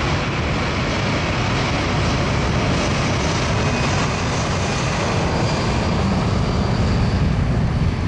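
Jet turbofan engines of a C-17 Globemaster running with a steady loud rush and a faint high whine.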